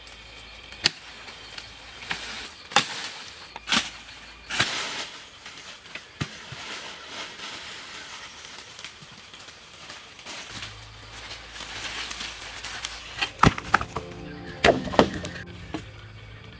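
Sharp cracks of dry wood snapping, scattered over a rustle of leaves and undergrowth, with a cluster of cracks close together near the end.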